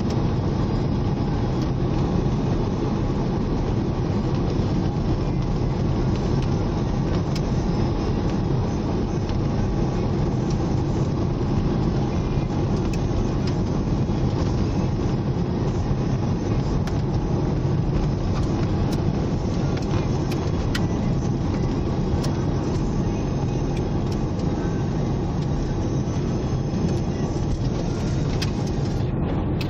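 Steady road noise inside a moving car's cabin: the engine and tyres running at road speed as a low, even rumble, with a few light clicks here and there.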